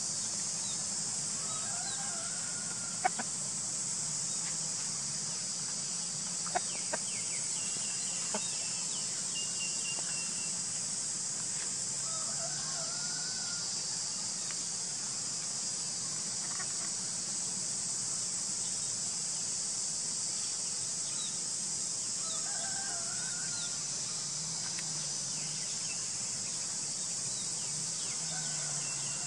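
Rooster crowing several times, short wavy calls spaced about ten seconds apart over a steady high hiss, with a few sharp clicks in the first part.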